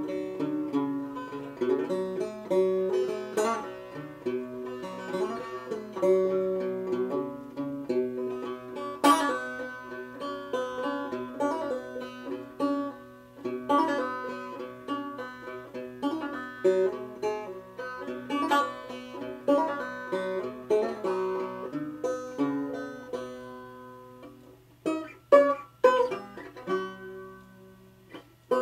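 Five-string banjo played solo, a steady run of quickly picked notes. Near the end the picking drops away to a quiet stretch broken by a few loud single strokes before the playing picks up again.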